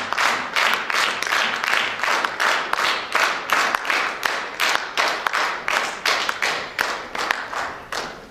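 Audience applauding in rhythmic unison clapping, about two to three claps a second, tailing off slightly near the end.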